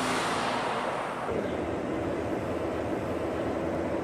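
Mercedes-Benz Future Truck 2025 tractor-trailer passing at speed: a rush of tyre and road noise that fades over the first second. After an abrupt change about a second and a half in, it gives way to a steadier low drone with a hum.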